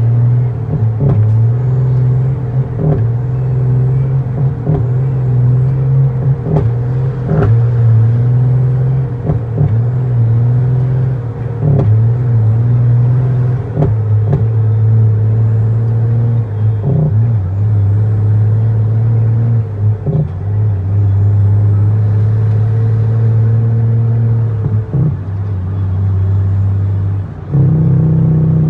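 Freightliner FLD120 Classic's diesel engine pulling on the road, heard from inside the cab as a loud, steady drone with scattered knocks and rattles. The engine note drops and rises a few times as the driver works the gear lever, with a step up near the end.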